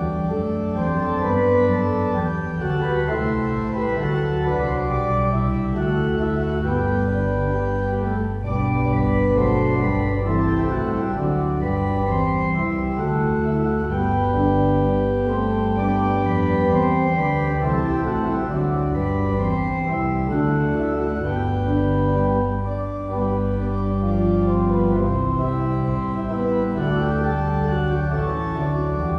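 Organ music playing held chords that change every second or so over a continuous deep bass.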